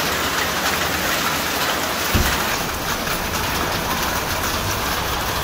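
Heavy rain pouring onto a flooded street: a dense, steady hiss of rain on standing water. About two seconds in, a low rumble comes in underneath and carries on.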